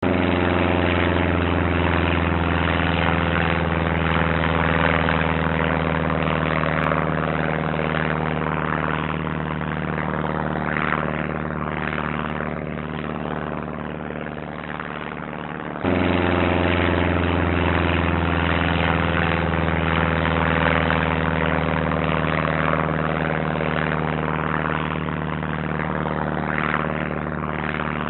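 Small propeller plane's piston engine droning steadily and slowly growing fainter as the plane moves away. About sixteen seconds in it cuts back abruptly to full loudness, as the effect starts over, and fades again.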